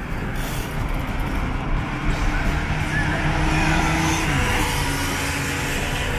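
City road traffic with a motor vehicle engine running steadily, its pitch dropping about four and a half seconds in.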